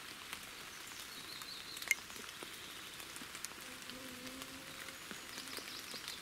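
Steady rain falling on leaves, an even hiss with scattered drips, one sharper drip about two seconds in.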